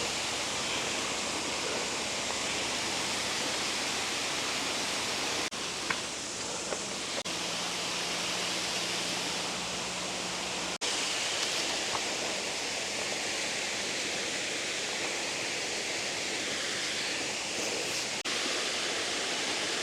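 Steady rush of a waterfall, Tutumangaeo Falls, an even hiss of falling water with a few brief breaks.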